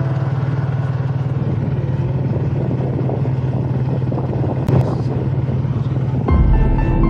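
A motor vehicle engine running steadily, with one sharp click about two-thirds of the way in; music comes in near the end.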